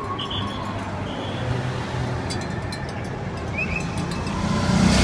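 Escort motorcycles and a police car of a bicycle race's motorcade pass along a city street, their engines a steady rumble that grows louder near the end as a motorcycle comes close.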